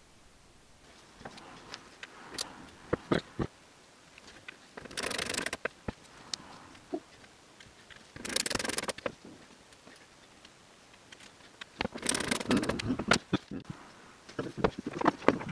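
Hands assembling hardware on a plywood base board: sharp clicks and knocks, with three scraping stretches of about a second each and a run of quick clicks near the end.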